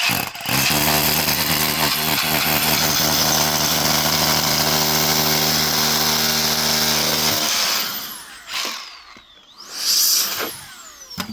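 Milwaukee cordless impact wrench hammering a bolt home in one long, steady run of about seven seconds. Two short trigger bursts follow near the end, each with a falling whine as the motor spins down.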